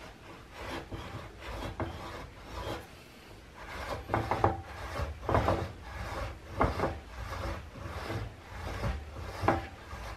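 Steel rear sprocket and its bolts being fitted to a pitbike wheel hub by hand: a string of irregular metal-on-metal scrapes and rubs with light clinks as the sprocket is worked onto its seat.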